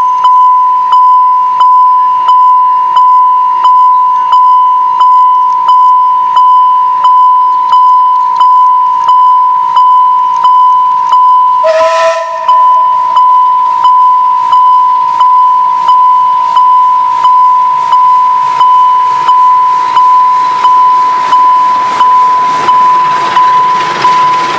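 Level-crossing warning bell ringing in an even, repeating ding a little faster than once a second, over a steady tone. About twelve seconds in, a train whistle gives one short blast.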